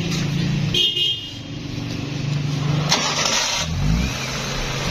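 Hyundai Santro Xing petrol engine cranked on the starter and running, with a new coolant temperature sensor fitted. It starts but will not take revs. A brief high-pitched tone sounds about a second in, and a deeper rumble builds near the end.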